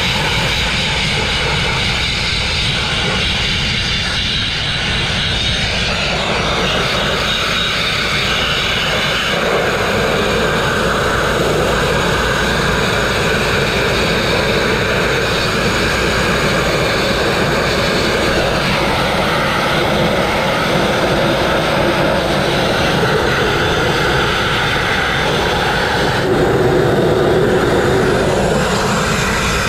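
Abrasive grit blasting: a steady, loud hiss from the blast nozzle's jet of grit striking the crane's steel, stripping rust and paint. Its tone changes a couple of times as the nozzle moves across the surface.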